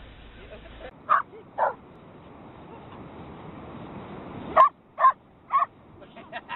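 Dog barking: two short barks about a second in, then three more in quick succession later on.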